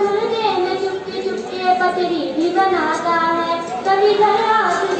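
Schoolgirls singing a qawwali into microphones: sung lines with long held notes that slide up and down in pitch.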